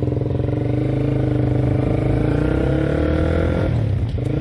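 Honda CBR150R single-cylinder engine pulling the bike along under acceleration, its pitch rising steadily, then briefly dropping off about four seconds in before pulling again.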